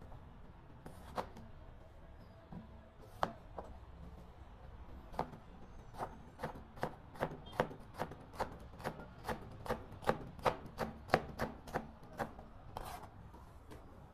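Chef's knife chopping a green bell pepper on a plastic cutting board: a few separate knocks, then a steady run of about two to three knocks a second for some six seconds.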